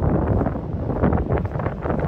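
Strong wind buffeting a phone microphone: a low, unpitched rush that surges and falls in irregular gusts.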